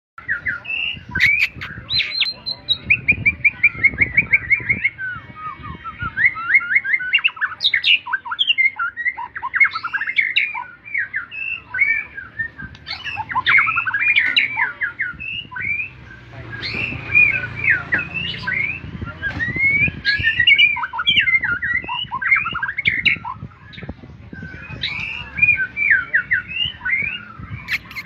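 White-rumped shama (murai batu) singing a long, varied song of rapid whistles, chirps and chattering notes with quick runs of repeated notes, almost without pause.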